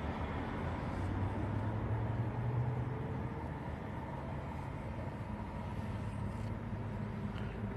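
Steady low drone of a running vehicle, a constant hum under an even wash of noise.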